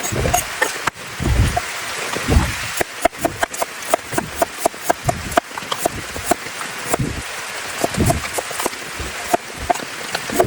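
Steady rain falling, with a knife chopping vegetables on a cutting board in quick, short taps, about two to three a second from about three seconds in. A few dull low thuds come in the first few seconds.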